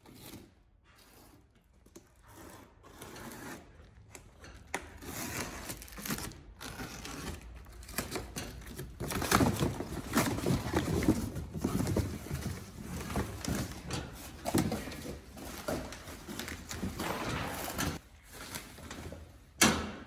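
A new chrome truck bumper being unboxed: cardboard and packing material scraping, rustling and knocking irregularly. It is sparse for the first few seconds, then busier, with one sharp knock near the end.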